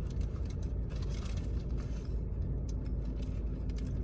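Steady low rumble of a car running, heard from inside the cabin, with a few faint light clicks.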